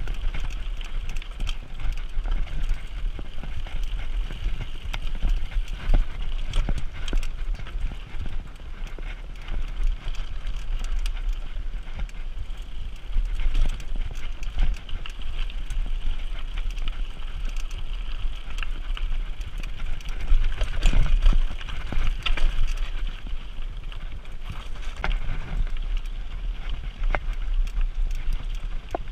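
Mountain bike rattling and clattering over a rocky trail, tyres crunching on loose stones, with many small knocks over a steady low rumble on the microphone.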